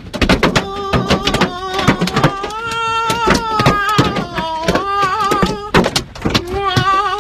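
Hailstones hitting a car's roof and glass, heard from inside the cabin: a dense, irregular barrage of sharp knocks, hail heavy enough that the owner takes the car for totaled. Over it, a man's drawn-out wordless wailing that slides up and down.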